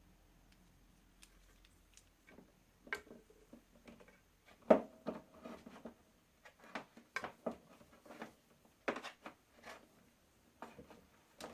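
Irregular small clicks and knocks from handling an extension cord's plastic socket and its stripped wires, the loudest knock about five seconds in.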